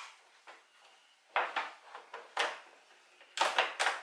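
Hard plastic clicking and knocking as the rain-channel pieces of a Slingline top on a Polaris Slingshot are handled and folded: a string of short sharp clicks, with a quick cluster of louder knocks near the end.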